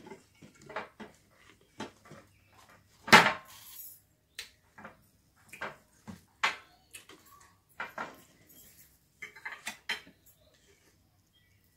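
Cutlery clinking and scraping on dinner plates as people eat, in irregular taps, with one louder clatter about three seconds in.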